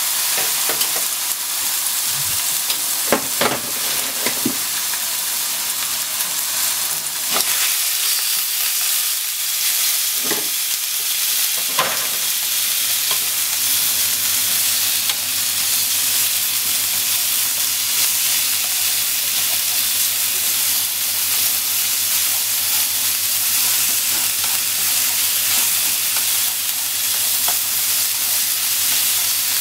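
Minced meat sizzling in oil in a frying pan, a steady hiss, while wooden chopsticks break it up and stir it, knocking and scraping against the pan several times in the first dozen seconds.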